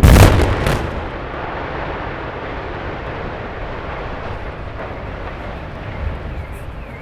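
Explosive demolition charges going off in one loud blast, followed by a long, steady low rumble. A faint, repeating wavering tone starts near the end.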